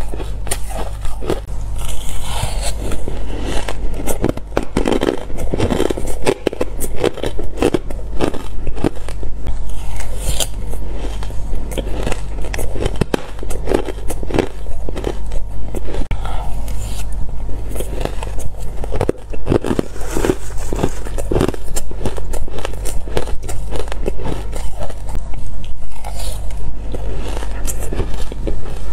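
Close-miked crunching and chewing of mouthfuls of shaved ice with crispy crunch pieces, a dense, steady run of sharp crunches, with a metal spoon scraping the ice in between.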